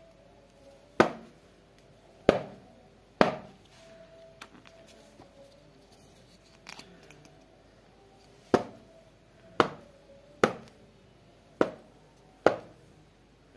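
Small plastic self-inking stamps pressed down hard onto a stack of paper, giving sharp knocks: three in the first few seconds, then five more in quicker succession from about eight seconds in.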